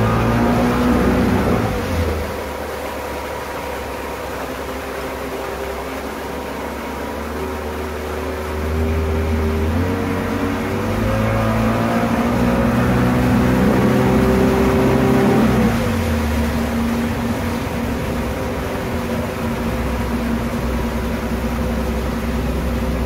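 Pontoon boat's outboard motor running underway over a steady rush of wind and water. The revs drop about two seconds in, climb again partway through, then fall back sharply about two-thirds of the way in.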